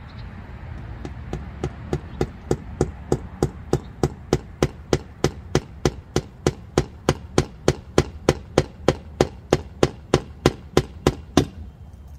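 A hammer driving a nail into the wooden frame of a raised bed, fastening chicken wire to it. The blows come in a steady rhythm of about three a second, lighter for the first few, and stop just before the end.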